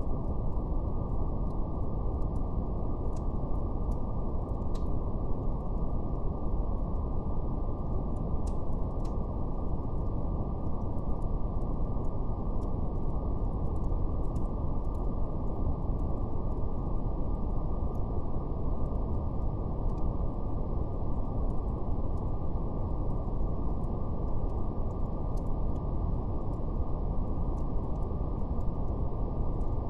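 Steady brown noise, a deep even rumble with nothing above the low and middle range. Faint, scattered crackles of a fire tick over it.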